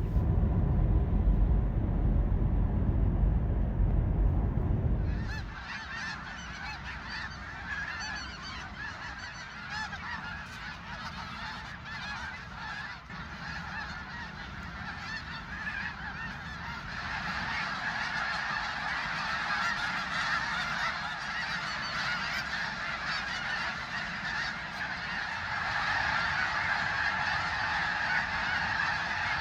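A large flock of geese honking and calling continuously, many voices overlapping, getting a little louder near the end. For the first five seconds a low rumble covers it, then cuts away.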